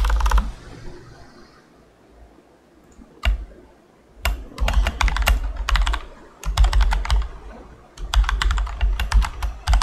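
Typing on a computer keyboard: quick runs of key clicks, with a pause of about three seconds near the start broken by a single keystroke, then steady bursts of typing.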